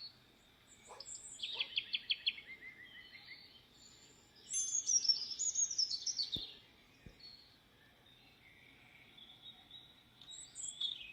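Songbirds singing in short, quick trilled phrases that step down in pitch: one phrase about a second and a half in and a louder one about four and a half seconds in, with scattered faint chirps between.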